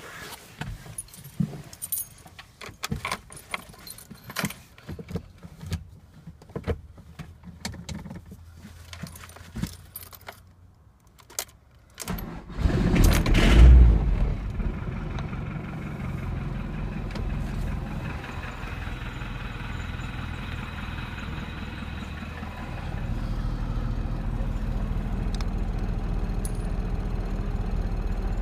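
Clicking and rattling, then the Fiat Ducato's 2.8 diesel engine catches on starting spray in a cold start after six months standing. It flares loudly for a second or two and settles into a steady fast idle, its low note growing stronger near the end.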